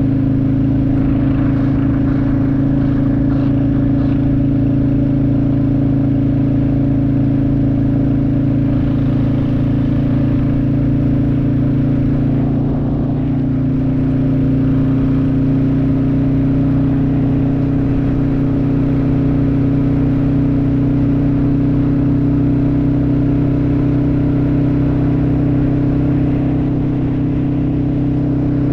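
Royal Enfield motorcycle engine running steadily at cruising speed, its pitch holding even, with a slight dip in loudness about twelve seconds in.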